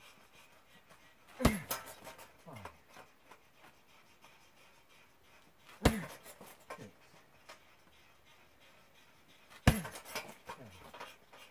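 A heavy punching bag kicked three times, about four seconds apart. Each kick is a sharp smack followed by a short falling groan and a fainter knock about a second later as the bag swings.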